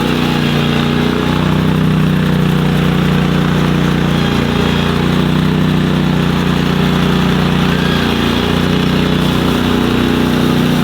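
Small engine of a Boss SR MAG snow machine running steadily at constant speed.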